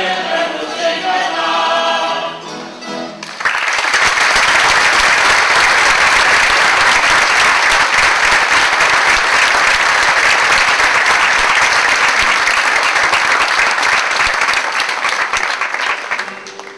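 A mixed choir of men's and women's voices sings its last notes, then about three and a half seconds in an audience breaks into loud, steady applause that carries on and drops away near the end.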